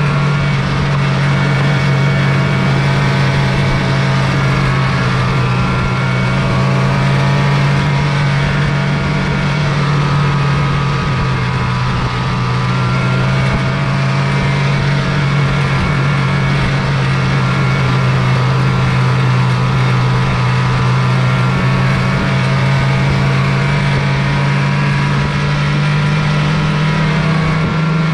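Snowmobile engine running steadily at trail-cruising speed, heard on board the sled: an even, continuous drone whose pitch wavers only slightly.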